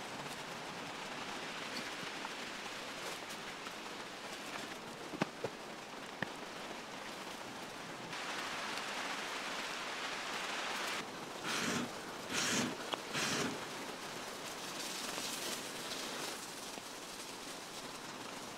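Pork belly sizzling on a flat rock over a wood fire: a steady hiss with a few small crackles, getting louder about halfway through. Several short louder bursts follow a little later.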